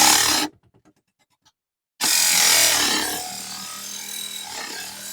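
Mini table saw cutting a small aluminum channel: a loud hiss of the blade in the metal that cuts off half a second in, a near-silent gap with faint ticks, then a second loud cut at about two seconds that eases into the saw running with a steady hum and lighter grinding.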